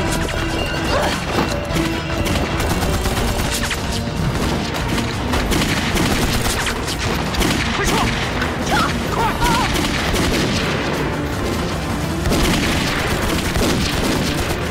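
Film battle soundtrack: a dense, continuous fusillade of pistol and rifle shots over background music, with a few shouts.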